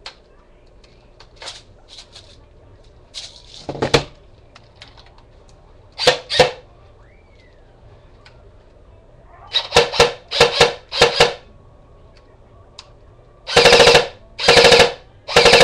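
Airsoft gun firing: scattered single shots, then a quick string of about five, then three full-auto bursts near the end, each a rapid rattle lasting about half a second.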